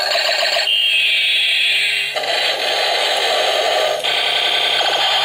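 Light-up toy helicopter playing its electronic sound effects through a small speaker: a harsh, buzzy, continuous noise that switches abruptly to a new pattern every second or two, with a falling tone about a second in.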